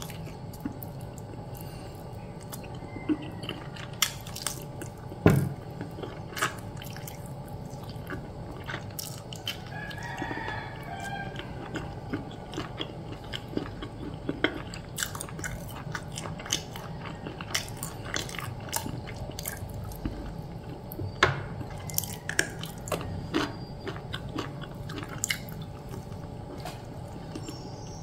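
Close-up eating sounds: biting and chewing fried chicken, with scattered crisp crunches and wet mouth clicks over a steady low background hum.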